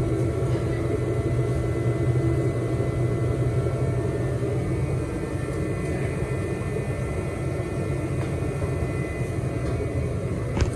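An engine running steadily, a low drone with a faint whine above it, with a single short click near the end.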